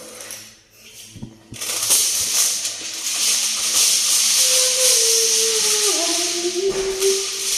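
Aluminium foil being pulled from its roll and crinkled: a dense, crackly rustle that starts about a second and a half in.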